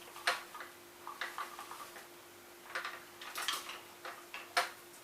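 Light clicks and taps of tools and plastic pump parts being handled during disassembly: scattered small knocks, a little louder a moment in and near the end.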